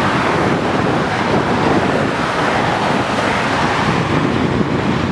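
Steady rushing noise of multi-lane freeway traffic, the tyres and engines of many passing cars blending into one continuous sound with no single vehicle standing out.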